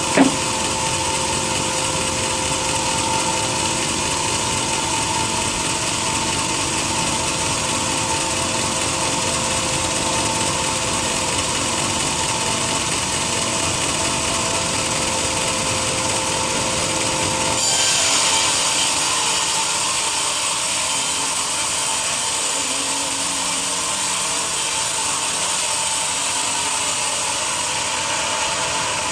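A sawmill saw cuts through a teak log in one long steady pass, with a continuous hum under the noise of the cut. Just past halfway the low hum fades and the sound turns brighter and hissier.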